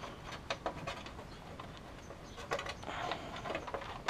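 Small plastic clicks and rattles of cables and connectors being handled and fitted inside a PC case, in an irregular scatter with a few sharper clicks.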